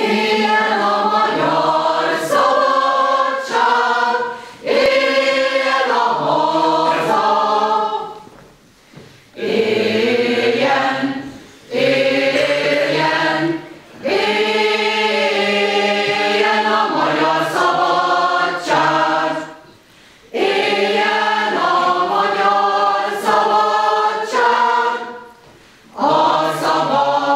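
Mixed choir of women's and men's voices singing a cappella in Hungarian, a canon, in long phrases with short breaths between them.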